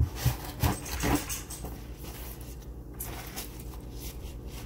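A few light knocks in the first second as a washed acorn squash is handled, then soft rustling of a paper towel as it is wiped dry.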